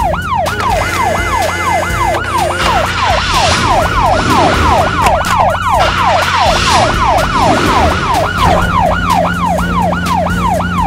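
Police car siren yelping: a rapid, steady run of falling wails, about three a second, over a low steady hum.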